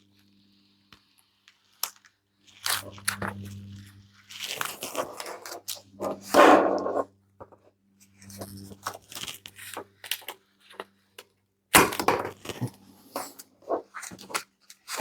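The plastic and padding layers of a headphone headband being peeled and torn apart by hand: irregular crackling and tearing with sharp clicks, loudest about six seconds in and again about twelve seconds in.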